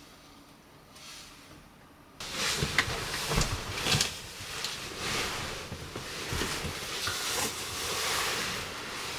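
Rain, faint at first, then suddenly much louder about two seconds in: a steady hiss with irregular taps and knocks.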